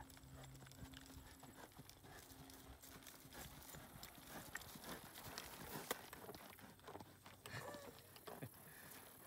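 Horses' hooves clopping faintly at a walk on dry grass and dirt, in an uneven run of soft hoof falls.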